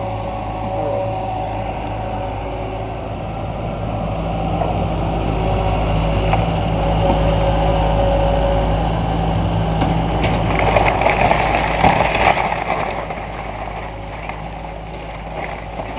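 John Deere backhoe's diesel engine running and working under load, its steady hum swelling over several seconds. A burst of crunching and cracking, loudest about ten to twelve seconds in, comes as the old wooden house is torn apart.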